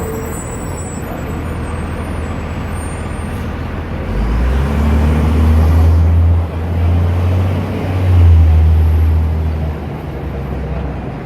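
Heavy diesel engine rumbling low, swelling much louder from about four seconds in until near ten seconds, over a steady background of traffic noise.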